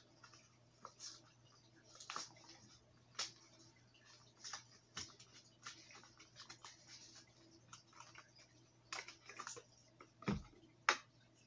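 Quiet, scattered clicks and crinkles of a plastic-and-cardboard fishing lure package being opened and a crankbait being worked out of it, with a soft thump and a sharp click near the end.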